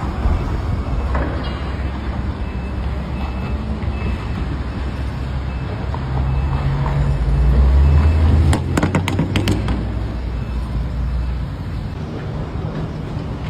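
Motor vehicle running with a steady low engine and road rumble that builds for a couple of seconds past the middle. A quick run of sharp clicks or knocks comes about nine seconds in.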